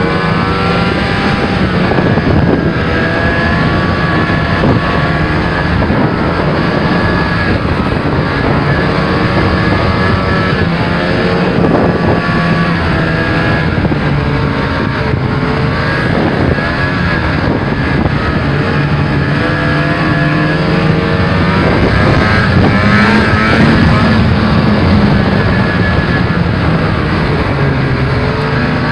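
Snowmobile engine running under way, its pitch rising and falling with the throttle and climbing for a few seconds about two-thirds of the way through.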